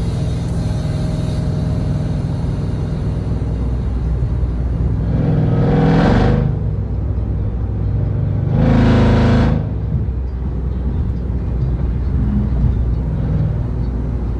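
Jeep Grand Cherokee Trackhawk's supercharged 6.2-litre Hemi V8 through a Gthaus valved cat-back exhaust, heard from inside the cabin. It gives a steady low drone while cruising, and twice, about five and nine seconds in, it swells into a louder burst of acceleration lasting a second or so.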